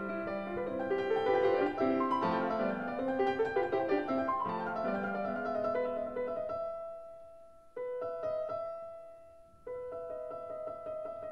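Solo piano music: quick runs of notes, then held chords that die away and are struck again twice near the end.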